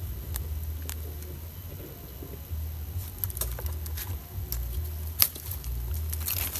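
A young long-tailed macaque handles a paper drink carton and eats from its hands, making small scattered clicks and crackles. They grow more frequent in the second half, with one sharp click about five seconds in, over a low wind rumble on the microphone.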